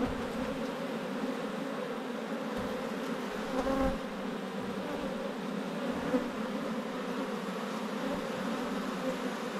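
Steady hum of a honeybee colony buzzing in an opened hive, with a brief louder buzz just before four seconds in.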